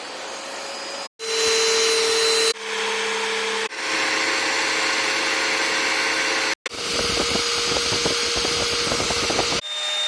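Bagged vacuum cleaners running one after another, each a steady motor whine with a rush of air. The sound switches abruptly to a different machine about every one to three seconds, about six machines in turn.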